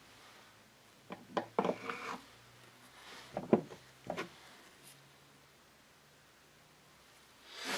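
Handling noises on a workbench as gasket sealant is readied for an engine crankcase: a few short clicks and brief scrapes, about a second in and again about three and a half seconds in.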